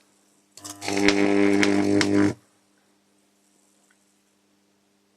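High-voltage arc from a microwave oven transformer's roughly 2,100 V AC output, buzzing and crackling loudly for about two seconds before it cuts off suddenly. A faint steady transformer hum is left.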